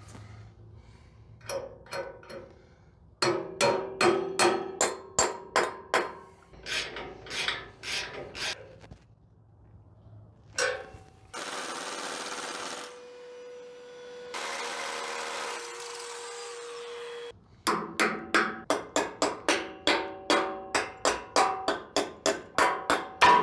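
Hammer blows on metal with a short ring, in a string of about three a second, broken in the middle by two short runs of a power drill, the second with a steady whine. The strikes start again faster near the end.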